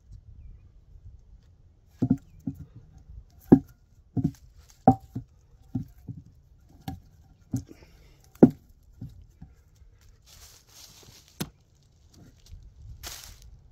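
About a dozen irregular, sharp wooden knocks as a freshly cut tree branch is knocked and set down against a log. Rustling and a click follow near the end as things are handled in dry leaves.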